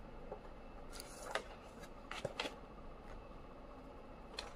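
Pages of a hardcover book being turned and handled: a few short, soft papery flicks and taps, about one, two and four seconds in.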